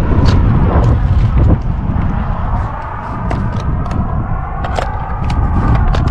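Strong wind buffeting the microphone high in a tree, a heavy rumble that eases a little about a second and a half in, with scattered sharp clicks and scrapes over it.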